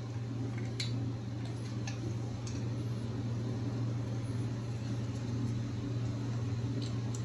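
A few light, sharp clicks of a compression tester being handled at the spark-plug wells of a Toyota 5S-FE four-cylinder engine, over a steady low hum.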